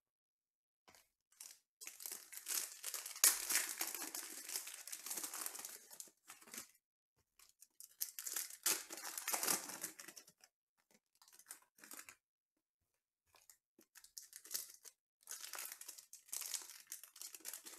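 Foil wrappers of Panini Contenders baseball card packs being torn open and crinkled by hand. The sound comes in several crackly bursts of a few seconds each, with silent gaps between them.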